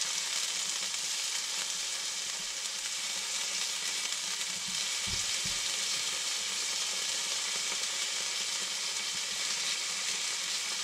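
Sliced wood hedgehog and brown birch bolete mushrooms sizzling steadily in olive oil in a nonstick frying pan as a silicone spatula stirs them, with a couple of low thumps about five seconds in.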